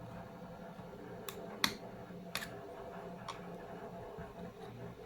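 Four small, sharp clicks, the loudest about a second and a half in, as a laptop SO-DIMM RAM stick is pressed down into its memory slot. A faint steady hum runs underneath.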